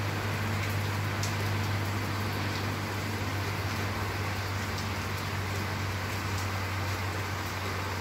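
Heavy rain pouring down: a steady hiss with scattered sharp ticks of drops striking nearby surfaces, over a steady low hum.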